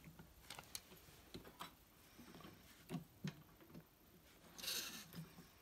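Faint, irregular clicks and light knocks at a vintage Electa sewing machine, with a short rustle about three-quarters of the way in.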